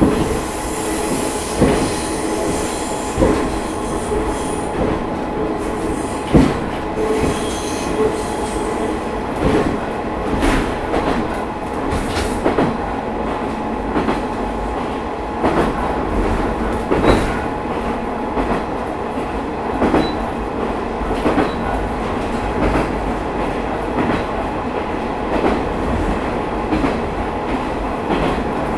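Matsuura Railway MR600-series diesel railcar running, heard from aboard: a steady hum of the diesel engine and drive over a low rumble, with rail-joint clicks every second or two, often in pairs. A faint high-pitched wheel squeal sounds in the first several seconds.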